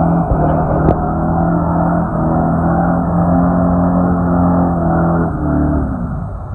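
A four-wheel-drive vehicle's engine running loud at steady revs, then easing off about five seconds in. There is a sharp knock about a second in.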